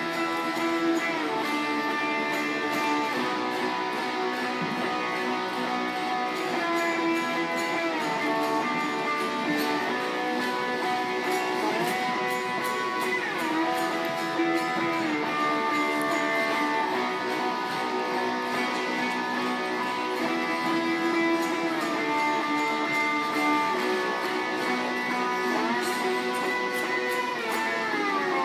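A group of homemade cigar box guitars strummed together in a blues tune, joined by an amplified guitar, with sliding notes about halfway through and again near the end.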